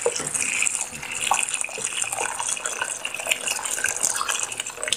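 Hot water pouring in a steady stream from a kettle into a saucepan of peas, potato and carrot, splashing onto the vegetables; the pour stops at the very end.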